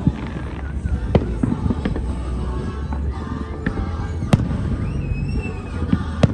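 Aerial firework shells bursting at a fireworks show: several sharp bangs, the loudest about four seconds in, over a steady low rumble.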